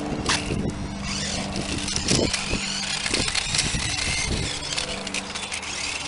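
Sharper Image Lean Machine remote-control toy motorcycle's small electric drive motor running with a steady whine as it rides over rough concrete, over a dense gritty crackle and a few low thumps.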